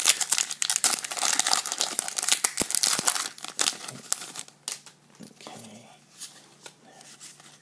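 Foil wrapper of a Pokémon trading-card booster pack being torn open and crinkled: dense crackling and tearing for about the first four and a half seconds, then quieter scattered rustles and clicks as the cards are slid out.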